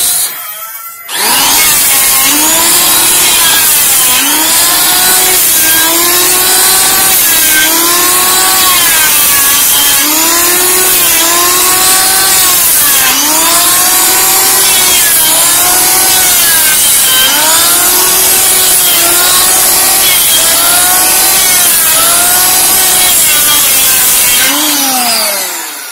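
Kyuho K282 electric hand planer, a roughly 500-watt machine, starting up about a second in and shaving a wooden beam, its whine rising and falling every second or two as it is worked along the wood. Near the end the motor winds down with a falling pitch.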